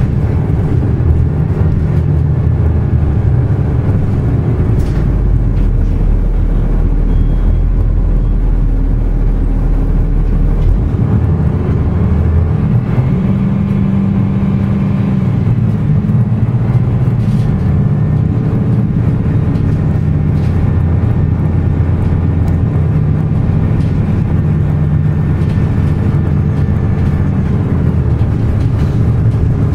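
Cabin of a 2005 ElDorado EZ Rider II transit bus under way: its Cummins ISB diesel engine runs with a steady low drone and road noise, the engine note shifting about a third of the way in as the bus changes speed.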